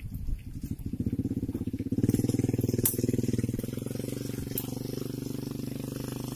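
Suzuki Carry pickup's engine running at high revs under heavy load as it struggles through deep mud, getting louder about two seconds in and then holding steady.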